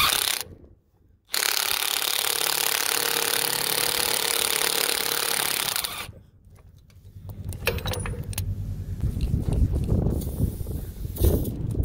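A power impact wrench runs in one steady burst for about four and a half seconds, starting about a second in. It is turning the forcing screw of a jaw puller and drawing a flange bearing off a conveyor roller shaft. After it stops there are a few light metal clicks and knocks from the puller being handled.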